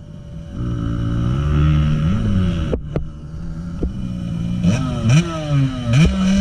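Motocross dirt bike engine running and revved, its pitch rising and dropping several times, with a sharp knock near the middle.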